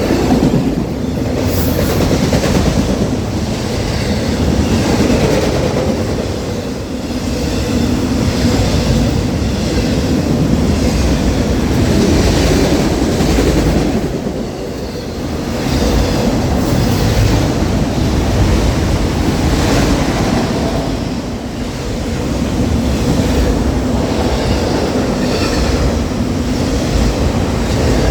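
Freight train of autorack cars rolling past at close range: a steady loud rumble of wheels on rail with clickety-clack over the rail joints.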